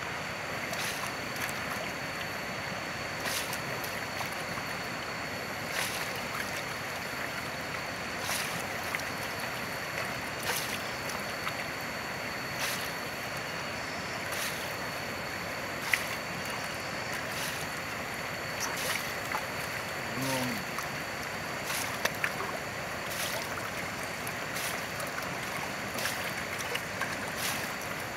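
Shallow river running over rocks, a steady rush of water, with occasional faint clicks and a faint steady high tone above it, while wooden gold pans are swirled in the water.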